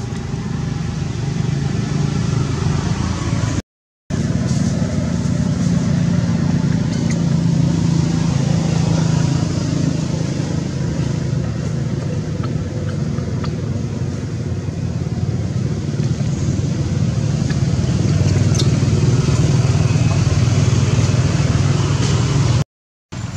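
A steady low mechanical rumble like an engine running, with no change in pitch, cutting out to silence twice for a split second, about four seconds in and near the end.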